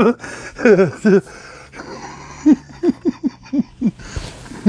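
A man laughing in a run of short, separate bursts, with a few voiced sounds just before it.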